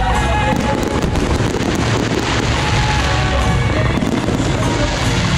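Fireworks crackling densely and continuously, with music playing through it.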